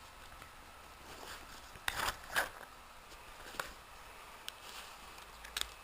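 A dog nosing about in search of hidden treats: scattered short rustles, scrapes and clicks, with a louder cluster of scrapes about two seconds in and single clicks after.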